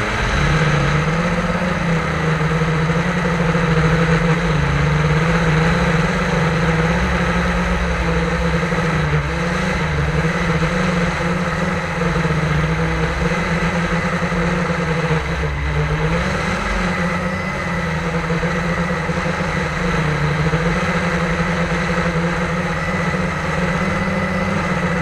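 Multirotor drone's electric motors and propellers humming steadily, the pitch shifting up and down slightly now and then as the drone flies.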